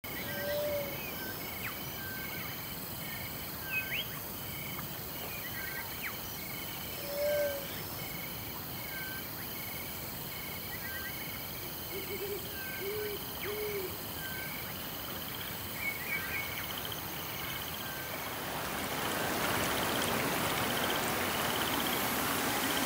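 Night-time outdoor soundscape: short, high, single-note animal calls repeated every second or so at two alternating pitches, with a few lower hooting calls, including three in a row about halfway through. Over the last few seconds a steady hiss grows louder.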